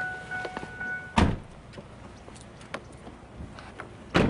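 A steady electronic tone from the open car stops about a second in as a car door slams shut. A second car door slams near the end.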